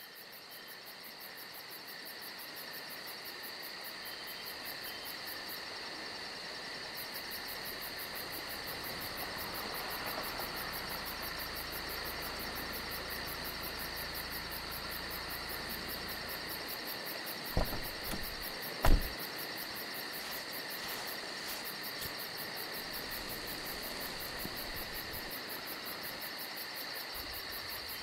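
Night chorus of crickets and other insects, a steady high chirring with a fast even pulsing above it. A low rumble underneath stops about two-thirds of the way through, and just after it come two sharp knocks about a second apart, the loudest sounds here.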